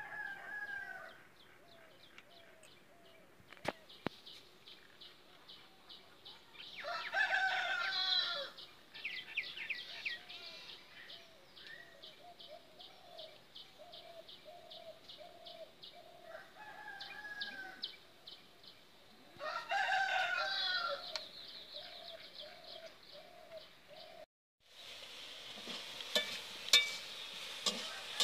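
A rooster crowing twice, about 7 and 20 seconds in, each crow about a second and a half long, over chickens clucking in short notes about twice a second.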